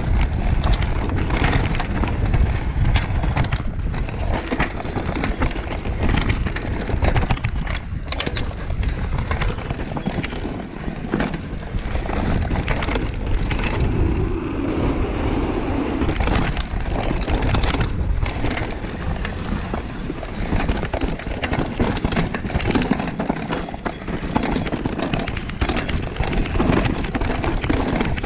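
Enduro mountain bike descending a dirt trail at speed: a steady rush of wind and tyre noise with the chain and frame rattling over the rough ground, and a few short, high disc-brake squeals.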